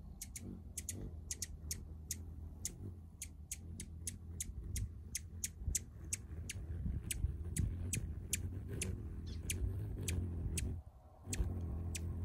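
Hummingbird chipping, a quick run of sharp high ticks about three a second, over the low hum of its wings. The hum cuts out briefly about eleven seconds in and comes back stronger as the bird hovers in to the feeder.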